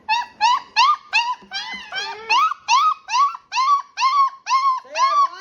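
Great Dane puppy crying in a rapid series of short, high whines, about three a second, each rising and then dropping in pitch. A lower, longer cry joins about two seconds in and again near the end.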